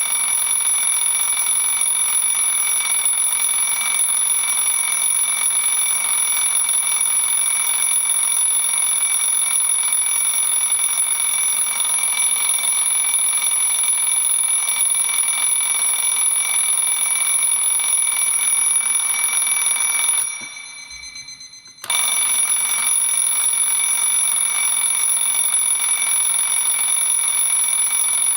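Twin-bell alarm clock ringing loudly and steadily. About 20 seconds in, it stops for about a second and a half, the bells dying away, then starts ringing again abruptly.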